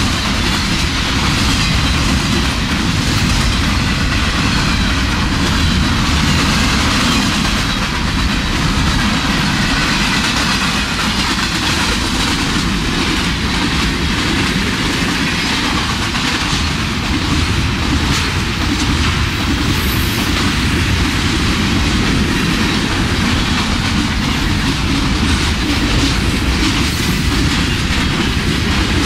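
Freight train cars rolling past at speed close by: a steady, loud rumble of steel wheels on rail, with repeated clicks.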